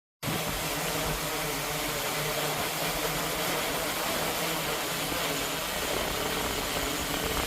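Strong gusty wind blowing over the microphone: a steady rushing noise with uneven low rumble and a faint hum underneath, starting abruptly just as the sound begins.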